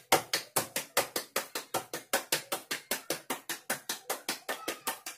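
Hands patting a ball of roti dough between the palms to flatten it, a quick, even run of soft slaps about six a second.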